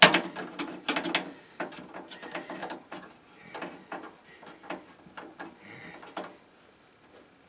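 Screwdriver turning the screw that secures a network card's metal bracket in a PC case: irregular clicks and short metallic scrapes that die away about six seconds in.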